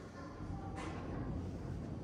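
Steady low indoor hum with faint distant voices and a brief knock a little under a second in.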